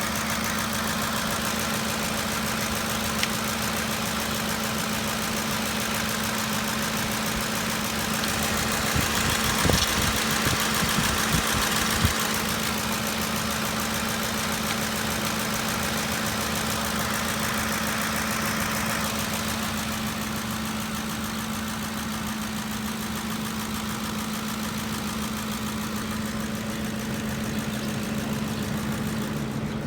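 Ford 5.4L three-valve V8 idling steadily with a ticking sound from the top end, which the owner suspects is the lifters. A few sharper knocks come through about ten seconds in.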